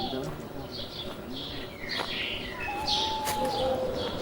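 A flock of birds chirping in many short, high calls, with a long level whistle about three seconds in.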